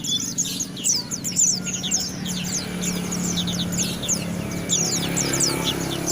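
White-eye (pleci) songbird singing a fast, continuous twittering song of quick, high, downward-slurred notes. A steady low hum runs underneath.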